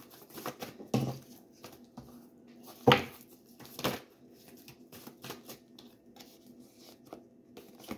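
Deck of tarot cards being shuffled by hand: irregular soft rustles and card snaps, the sharpest about three seconds and four seconds in.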